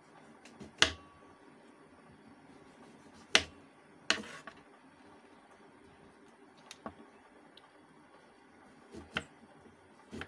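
Kitchen knife cutting spiny gourds (chathail) on a table: a handful of short, sharp knocks as the blade goes through and strikes the surface, spaced irregularly, the two loudest in the first few seconds.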